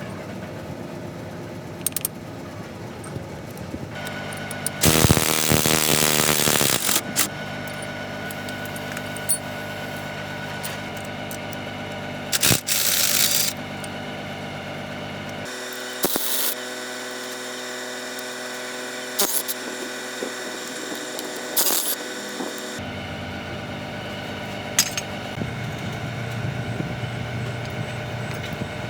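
Workshop repair sounds: a steady mechanical hum runs throughout under scattered sharp metallic clicks and knocks. Two longer bursts of a power tool come, one at about five seconds and one at about twelve seconds.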